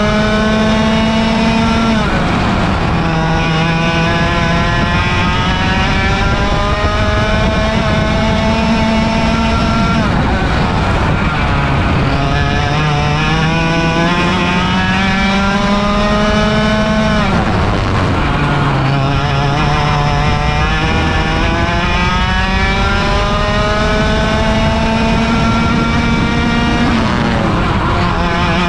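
100cc two-stroke kart engine at racing speed, recorded on board. Its revs climb steadily for several seconds on each straight, then drop sharply as the driver comes off the throttle for corners, several times over.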